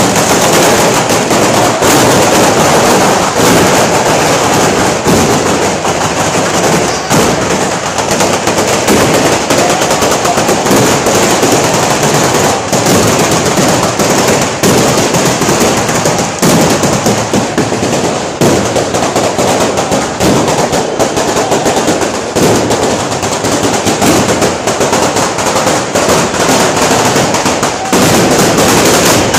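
A batteria, a long string of firecrackers laid along a street, going off in a dense, steady rattle of rapid bangs.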